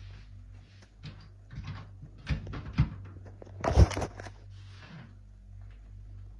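A run of short knocks and clunks, the loudest about four seconds in, over a steady low hum.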